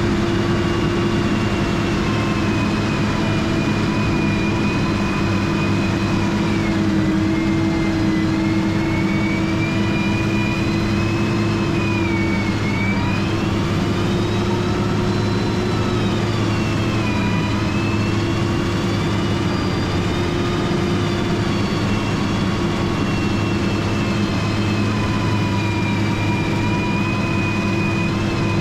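Motor grader's diesel engine running steadily at working speed, with a high whine above the engine note that dips in pitch and recovers a few times.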